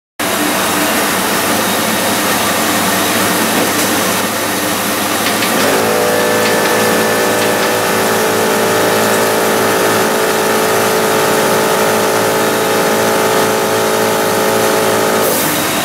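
The Trans Am's LS1 350 V8 running steadily at idle, with a steady whine joining about six seconds in and stopping shortly before the end.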